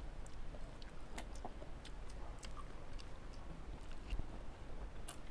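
People chewing fresh fruit: scattered small, irregular mouth clicks and smacks at a low level.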